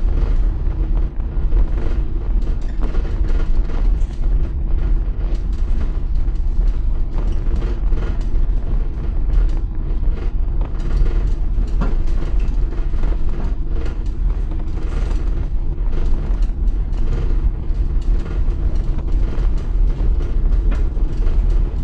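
Cabin noise of an electric minibus rolling slowly over cobblestones: a steady low rumble from the tyres on the stones, with constant small rattles and clicks.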